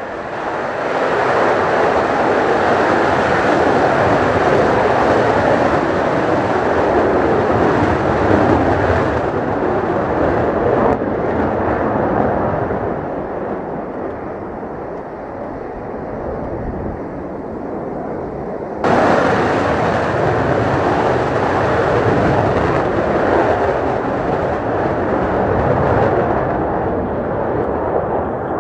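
Mitsubishi F-2 fighter's single General Electric F110 turbofan engine, a loud continuous jet noise that eases a little, then jumps abruptly back up about two-thirds of the way through.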